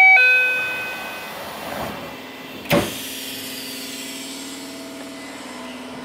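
Subway train door chime, two notes ringing out and fading over about a second, then the doors closing with a single sharp thud about three seconds in. A steady low hum of the stationary car follows.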